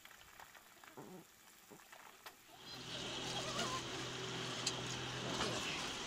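Faint clucking of hens foraging in grass, with near silence between calls. About two and a half seconds in, a steady hiss with a low hum sets in and runs on.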